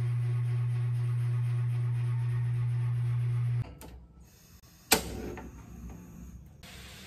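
A steady low hum that stops abruptly about three and a half seconds in. Then a gas stove's knob is turned: a faint click, and about a second later a single sharp loud click of the igniter, followed by a softer fading hiss as the burner lights.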